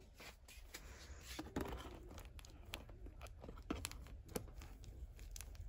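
Faint handling noise: light crinkling with a few scattered sharp clicks over a low hum.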